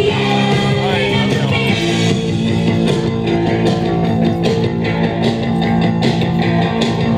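Live band playing loud rock music with guitar.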